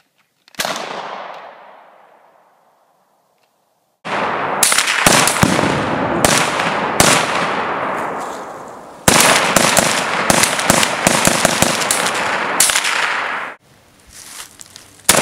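Gunshots from a handgun and rifles, each followed by a long rolling echo. There is one shot about half a second in, then a dense run of shots from about four seconds in. In the run, a Tannerite exploding target goes off with a boom.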